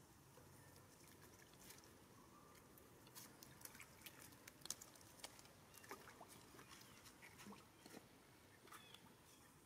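Faint, irregular clicks and light splashes of macaques drinking and moving at the water's edge of a shallow pool.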